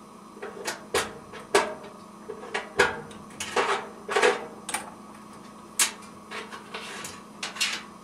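Wire leads with push-on spade connectors being pulled off the terminals of a dryer thermal fuse and thermistor: a string of irregular sharp clicks and short scrapes.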